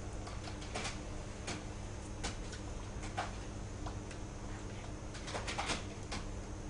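Scattered soft taps, clicks and rustles from a person using sign language: hands meeting and clothing moving. They are heard over a steady low hum, with a small cluster of them about five and a half seconds in.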